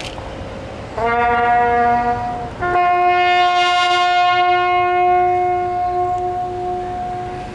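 A lone bugle sounding a ceremonial call in long held notes: a lower note about a second in, then a long higher note held for about five seconds that eases off near the end.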